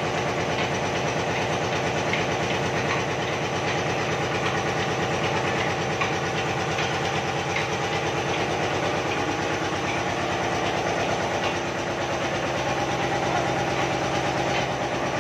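Upkar 6-bolt heavy-duty oil expeller running steadily under load while pressing oilseed, a continuous machine drone with a fast, even pulsing rhythm.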